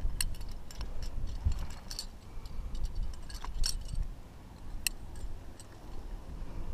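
Climbing carabiners clicking and clinking irregularly as a sling is clipped to a placed cam and the rope clipped through it.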